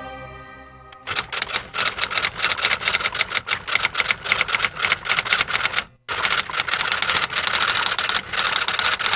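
Typewriter keys clacking rapidly, a typing sound effect for on-screen text being typed out; it stops for a moment about six seconds in, then resumes. The tail of the music fades out during the first second.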